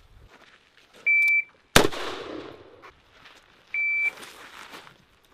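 An electronic shot timer gives a short, steady, high-pitched start beep. About a third of a second later a single M4-style carbine shot goes off and echoes as it dies away. A second start beep follows about two seconds later.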